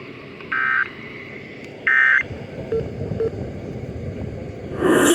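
Emergency Alert System end-of-message (EOM) data tones: two short, shrill warbling digital bursts about a second and a half apart, the last two of the three that close the alert, over steady background hiss. Near the end a loud burst with several tones cuts in.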